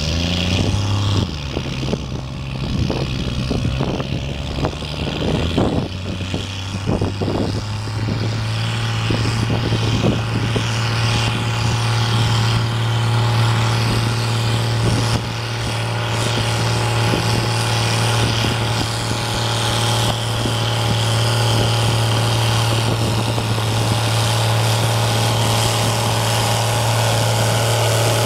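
Leyland pulling tractor's engine running hard under load as it drags a weighted sledge. The engine note is uneven for the first six seconds or so, then holds a steady, loud pitch to the end.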